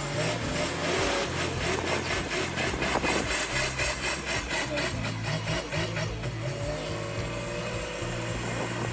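Heavy diesel engine of a wheel loader running, with a fast, even rhythmic clatter through the first part that fades after about six seconds.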